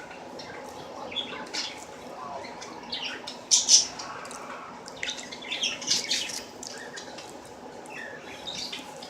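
Close-up eating sounds: irregular wet smacks and clicks of chewing and lips, loudest in two clusters in the middle, over a faint steady room hum.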